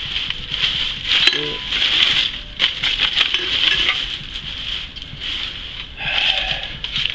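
Small objects being handled and shifted on a cluttered desk while someone searches for something to wipe with: scattered light clicks, taps and rustles over a steady high hiss.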